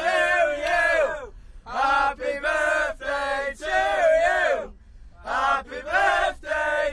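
Group of young voices chanting loudly together in short phrases, with two brief breaks about a second and a half in and near five seconds in.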